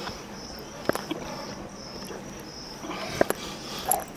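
Crickets chirping in a steady, pulsing high trill, with a few sharp clicks about a second in, past three seconds and near the end.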